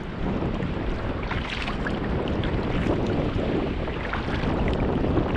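A sea kayak being paddled: the paddle blades dip and splash and water washes along the hull. Wind buffets the microphone throughout.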